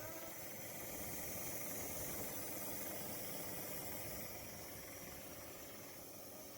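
Small portable evaporative air cooler fan running: a steady airy hiss with a faint hum, easing off slightly about two-thirds of the way in.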